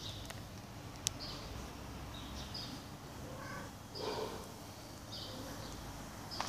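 Bird chirping, a short high chirp repeated about once a second over low street background noise, with a sharp click about a second in and a brief louder noise about four seconds in.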